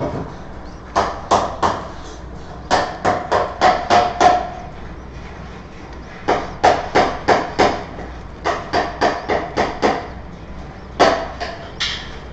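Sharp knocks or taps in quick runs of three to six, about three a second, with short pauses between the runs.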